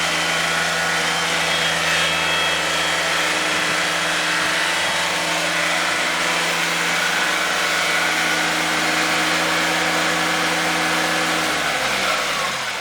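Kubota 32-series zero-turn mower engine running at a steady speed, then shut off near the end, its pitch falling as it winds down.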